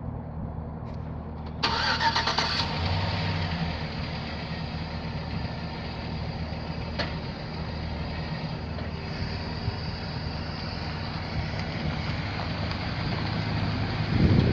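2006 GMC Sierra 1500's 4.8-litre V8 running at a steady idle, briefly louder about two seconds in. The engine is listed as having issues and needing to be replaced.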